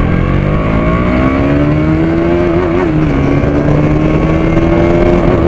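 KTM Duke 200's single-cylinder engine accelerating hard through the gears as the bike is ridden. The engine note rises over the first two seconds, dips briefly at a gear change about two and a half seconds in, then climbs slowly again, with another shift near the end.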